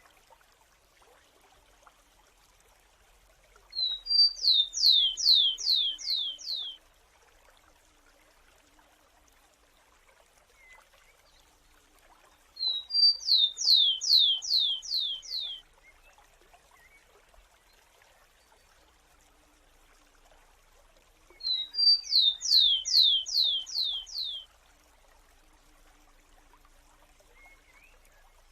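Rufous-collared sparrow singing three times, about nine seconds apart: each song is a short high note or two followed by a quick series of about six falling notes, lasting about three seconds, over a faint steady hiss.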